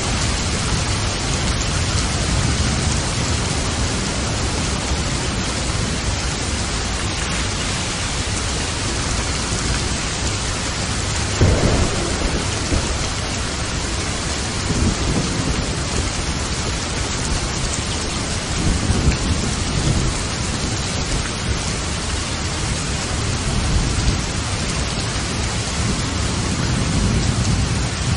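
Steady rain falling in a thunderstorm, with low thunder rumbling underneath. A louder thunder rumble begins suddenly about eleven seconds in, and more rolls follow.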